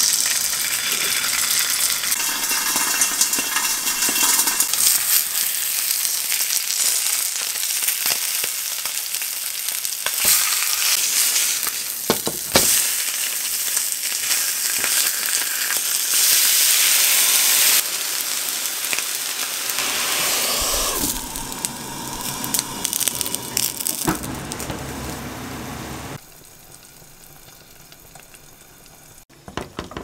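Food frying in hot oil in a pan: a steady sizzle with crackles, louder for a couple of seconds midway, then dropping off sharply near the end.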